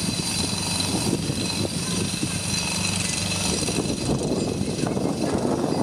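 Construction noise from tram track works: machinery running with a continuous rapid mechanical hammering, and a steady low hum that fades out about halfway through.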